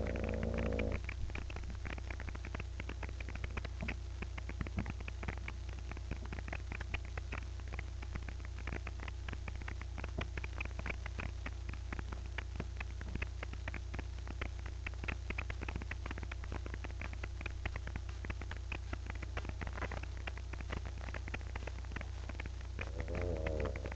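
Bulldog asleep and snoring: one pitched snore in the first second and another near the end, with a faint crackling rattle in between over a steady low hum.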